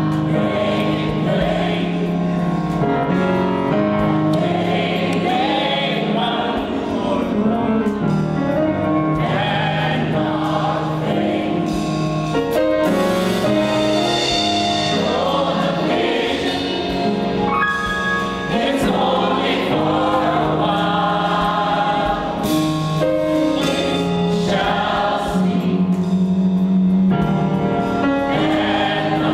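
A choir singing in parts with live band accompaniment of electric guitar and bass, the low notes held steadily under the voices.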